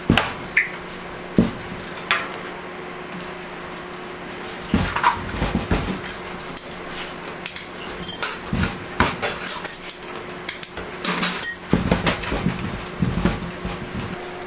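Knocks, taps and clatter as warm candy is pressed and rolled into a striped log by gloved hands on a stainless steel worktable. A few sharp knocks come in the first two seconds, then the clatter grows busy from about five seconds in, over a steady hum.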